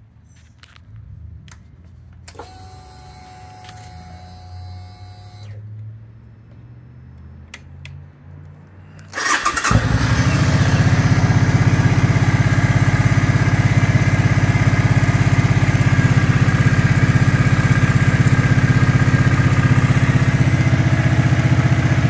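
Suzuki Boulevard C50's V-twin engine starting up about nine seconds in and settling into a steady idle.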